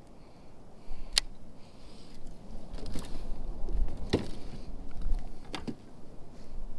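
Fishing gear being handled in a plastic kayak: several sharp clicks and knocks against the hull and fittings, over a low rumble.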